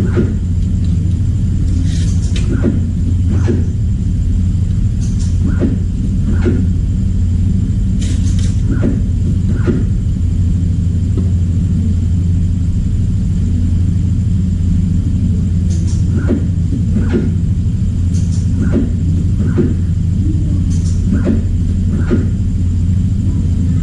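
Steady low electrical hum with light clicks and taps at irregular intervals.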